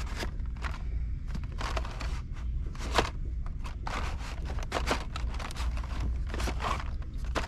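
Blister-carded Hot Wheels cars being handled and shuffled in a cardboard case, with irregular plastic clicks and scrapes over a steady low hum.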